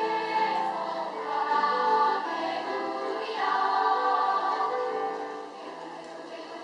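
Elementary-school children's choir singing in held notes.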